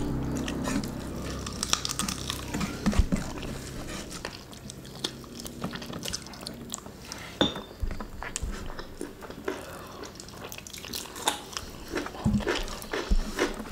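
Close-miked eating sounds: wet chewing and lip smacking as curry fried chicken and rice are eaten by hand, with scattered sharp clicks and taps of fingers picking food from a metal tray.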